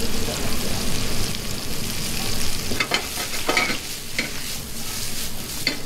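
Mushrooms sautéing and sizzling in a hot pan while being stirred, with several short scrapes or knocks of a utensil against the pan about three to four seconds in and again near the end.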